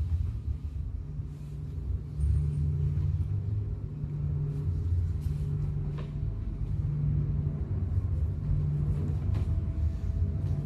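A low, steady machine rumble, with a single click about six seconds in.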